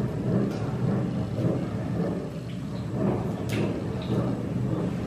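A steady low rumble with a few light clicks and taps as fish is rubbed by hand with salt and turmeric on a steel plate.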